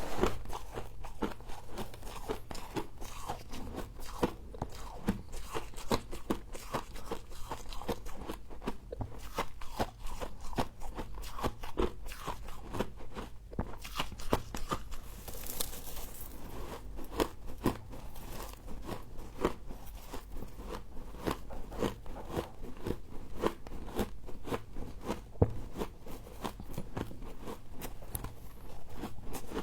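Close-up crunching and chewing of humidifier frost: rapid, irregular crackly crunches as the icy frost is bitten and chewed.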